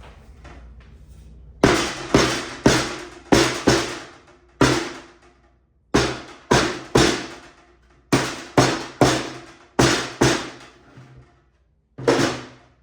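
Hammer blows on a wooden drawer box as its glued parts are knocked together: about fifteen sharp strikes in quick groups of two to five, each ringing briefly.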